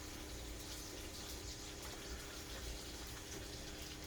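Steady background hiss with a faint low hum: quiet room noise.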